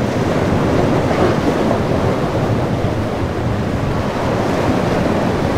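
Waves and surf churning in a rough inlet, with wind rushing over the microphone, as a steady, even noise.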